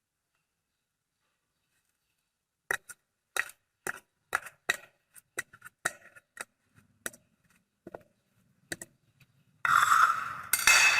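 A knife clicking and knocking on a cutting board while slicing banana, irregular strokes about two a second that grow fainter. Near the end a louder, denser clatter of kitchen handling takes over.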